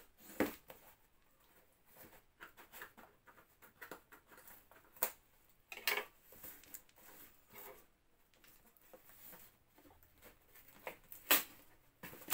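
A taped cardboard parcel being opened by hand: irregular scratching and scraping of scissors and fingers on packing tape and cardboard, with a few sharper clicks and knocks.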